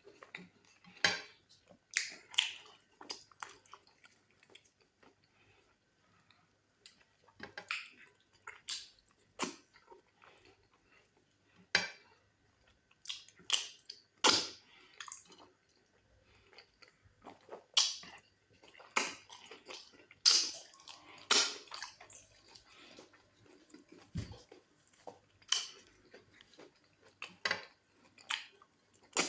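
Wet chewing and lip-smacking from a person eating fufu and goat meat in black soup, in irregular sharp smacks a second or so apart.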